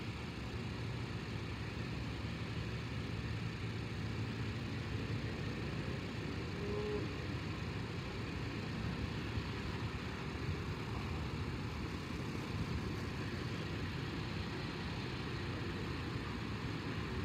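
An SUV's engine running at low speed, a steady low rumble, as it backs a boat trailer slowly.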